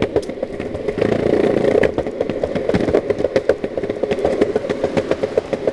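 Longboard wheels rolling over a concrete sidewalk: a steady rolling rumble with many irregular clicks and clacks from the board running over the slabs.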